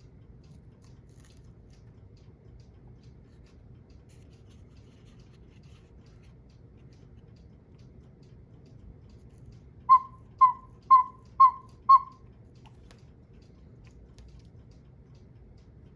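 Five short, identical whistle-like notes in quick succession, about two a second, a little past halfway through, over the faint steady ticking of a clock.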